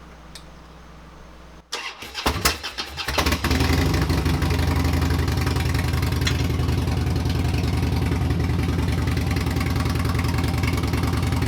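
Harley-Davidson Sportster 883's air-cooled V-twin, fitted with a Two Brothers Racing Comp S exhaust, being started. It cranks for about a second and a half from roughly two seconds in, then catches and settles into a steady idle.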